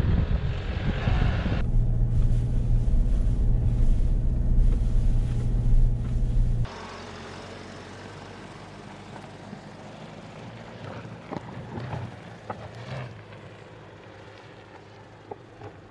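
Mercedes-Benz GLB 200 d's four-cylinder diesel engine pulling the car up a gravel track, heard close as a loud, steady low drone, with wind noise rushing over it for the first couple of seconds. A little before halfway the sound drops abruptly to a much quieter, more distant sound of the car rolling over gravel, with scattered clicks of stones.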